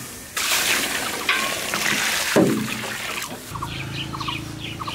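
Water splashing and sloshing in a large steel tray as boiled noodles are rinsed in cold water and stirred. Birds chirp faintly in the second half.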